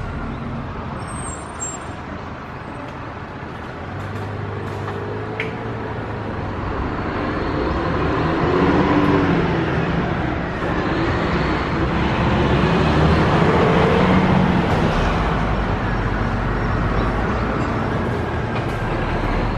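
Motor vehicle engine running with road noise, growing louder over several seconds and easing off again near the end.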